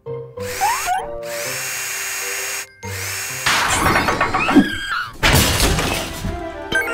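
Cartoon background music with power-tool sound effects like a drill working, including a steady stretch of whirring about a second in and a busier, louder burst of tool noise near the end.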